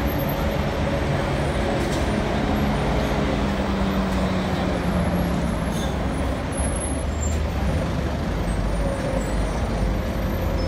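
City street traffic: a steady wash of road noise with a low engine rumble from passing vehicles.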